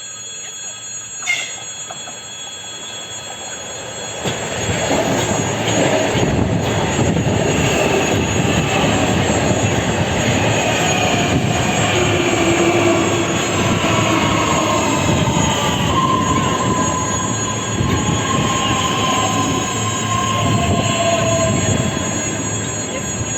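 EG2Tv 'Ivolga 2.0' electric multiple-unit train running past, with a loud rumble of wheels on rail and whining tones that slowly fall in pitch. A short sharp sound comes about a second in, before the train noise swells at about four seconds.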